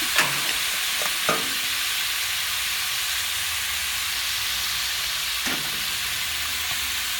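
Green beans sizzling steadily in hot oil in a pan, with a few sharp knocks of a utensil against the pan: one near the start, two about a second in, and one more later.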